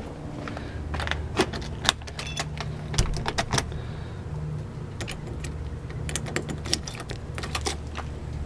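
A bunch of keys jangling and clicking in three short bursts as a key is worked into a door lock, over a steady low hum.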